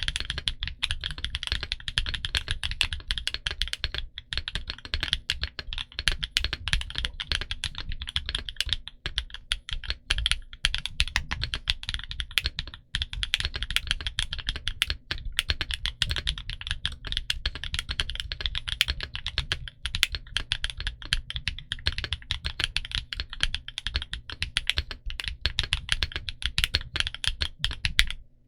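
Fast, continuous typing on a Portico68 mechanical keyboard with Gateron Green Apple heavy tactile switches and Cherry-profile PBT keycaps: a steady stream of keystroke clacks.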